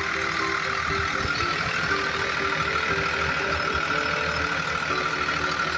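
A steady heavy-vehicle engine sound running without a break, with a simple tune of short notes stepping up and down over it.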